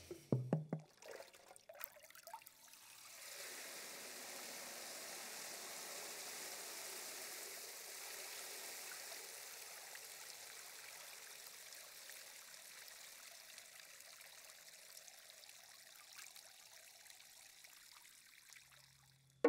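Water pouring in a steady fine trickle from a bowl held overhead during a water-percussion performance. A few drips come first, the trickle begins about three seconds in, and it fades away near the end.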